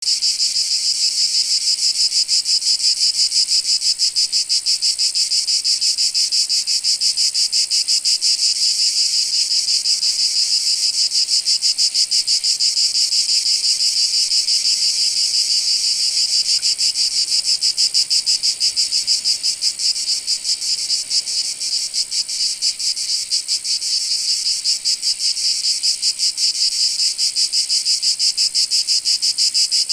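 Cicadas buzzing in a dense, continuous chorus, a high-pitched rapid pulsing drone that holds steady throughout.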